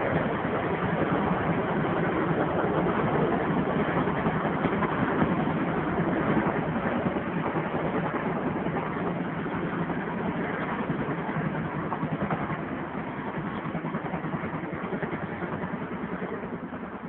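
Several helicopters flying past in a parade: a steady din of rotors and engines that eases off toward the end.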